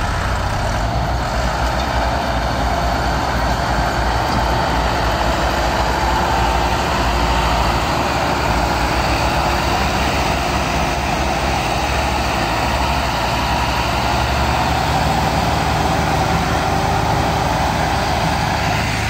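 Massey Ferguson 385 tractors' diesel engines running steadily under heavy load while pulling a loaded sugarcane trolley together.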